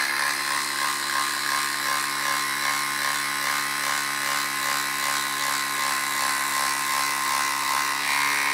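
DeWalt XR quarter-inch hex impact driver running without a break in impact mode, hammering a half-inch, 6-inch lag screw down into a wood log round.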